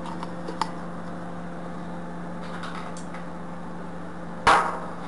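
Objects being handled on a wooden workbench over a steady low hum: a few light clicks, then one loud, sharp knock near the end.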